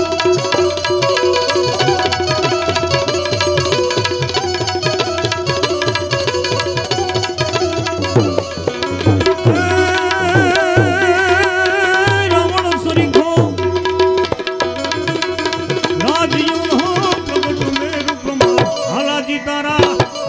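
Instrumental interlude of Gujarati devotional folk music: tabla strokes under sustained melody lines, some of them wavering, with no sung words.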